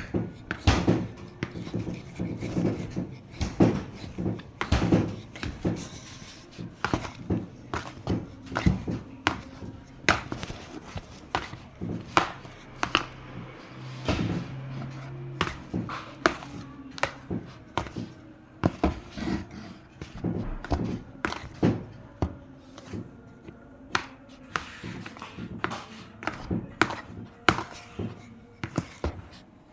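Repeated knocking and thunking at irregular intervals, often two or three a second, from a large batch of seasoned flour being mixed by hand with simple utensils. A faint steady hum lies underneath.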